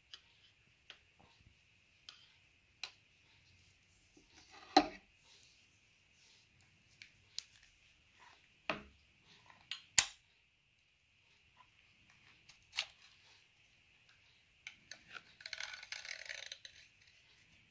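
Metal clicks and taps of staple strips being handled and fitted into the staple channel of a hand tape tying tool, with two sharper clicks about five and ten seconds in. Near the end, a short scraping rattle as a staple strip slides along the metal channel.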